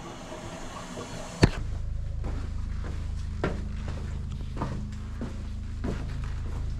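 A sharp click, then footsteps at a steady walking pace, one step about every half second, over a steady low rumble.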